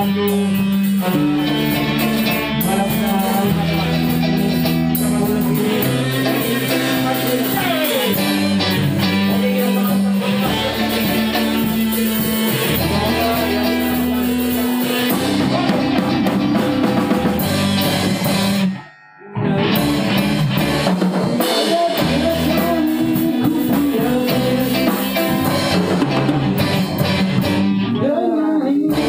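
A band playing a song live, with a drum kit, guitars and a sung vocal. Past the middle the music stops dead for about half a second, then the band comes back in.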